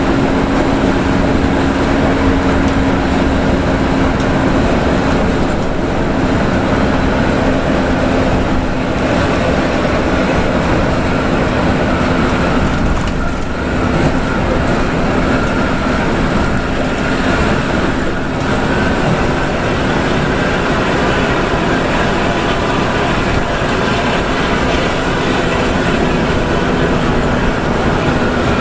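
Inside the driver's cab of a coach cruising on the highway: the bus engine holds a steady drone under a continuous rush of tyre and road noise. The drone sinks slightly in pitch over the stretch.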